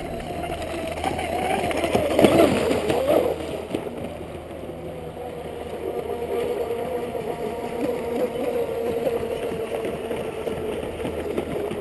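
Radio-controlled electric speedboat running at speed across the water, its motor giving a steady whine that sags slightly in pitch. The whine is loudest, mixed with rushing noise, about two to three seconds in.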